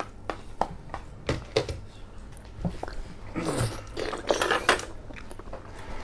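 A kitchen knife paring the skin off a soft fruit, a series of sharp clicks, then a bite into the fruit about three seconds in and wet chewing close to the microphone.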